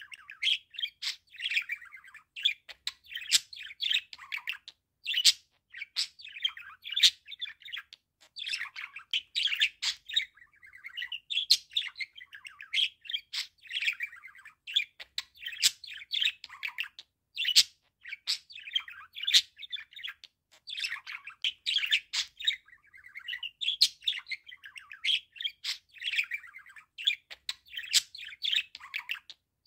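A budgerigar warbling and chattering in a long run of rapid twittering phrases, a second or two each, with short pauses and sharp high chirps mixed in.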